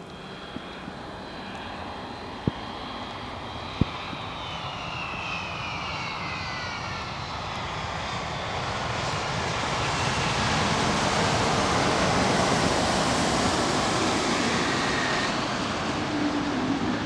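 A Boeing 777-200 airliner's jet engines passing. The noise grows steadily louder to a peak about two-thirds of the way through, and a high whine falls in pitch as the aircraft goes by. A few sharp clicks sound in the first four seconds.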